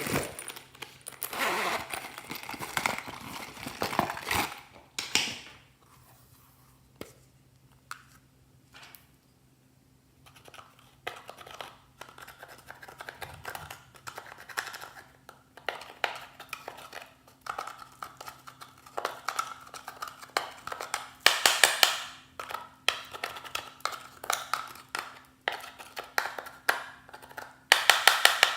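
Hands squeezing and pressing slime, making runs of quick crackling, popping clicks that come in bursts, louder near the start and toward the end, with a quieter stretch in the middle.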